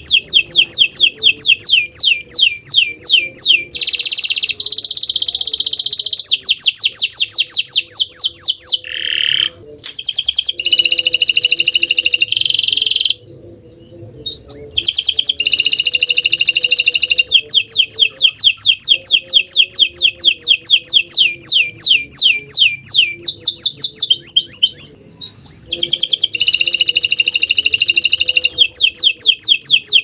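Domestic canary singing gacor: a long, loud song of fast repeated high trills and rolled phrases, with brief breaks about a third of the way in, near the middle and toward the end. It is the energetic kind of canary song used as a master recording to set other canaries singing.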